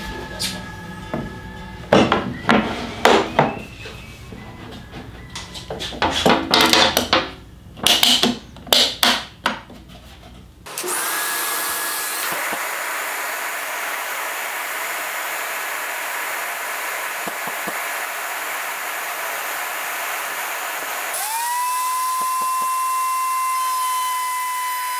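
Background music with a run of short wooden knocks and scrapes over the first ten seconds. Then, after an abrupt change, a woodworking power tool runs with a steady rushing noise. About twenty-one seconds in, a motor spins up with a rising whine that settles into a steady high tone.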